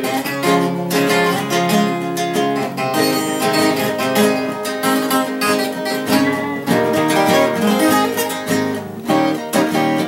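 A viola caipira and a nylon-string acoustic guitar playing an instrumental interlude of a Brazilian caipira song together, without singing.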